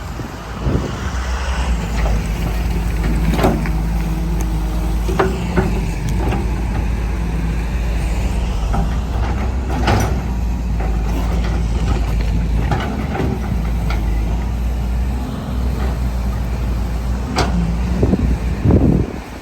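John Deere 200 LC excavator working, its diesel engine running steadily under load with a hydraulic whine. The bucket knocks and scrapes in the dirt several times, loudest near the end.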